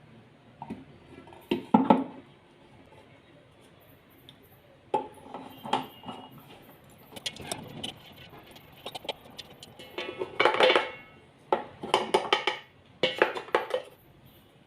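Metal kitchen utensils and vessels clinking and clattering in short bursts as they are handled, some knocks ringing briefly.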